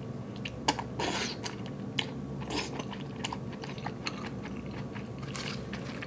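Close-up mouth sounds of someone eating thick udon noodles: chewing and slurping, with many small wet clicks.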